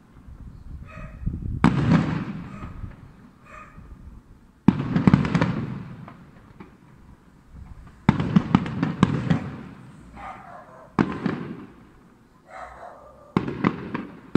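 Aerial firework shells bursting, about five booms each trailing off in a rolling rumble, with a burst of crackling after the middle one.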